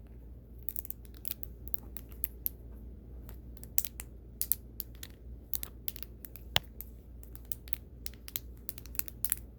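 Plastic Wacky Track fidget links clicking as they are twisted and snapped between positions, in quick irregular clicks several times a second.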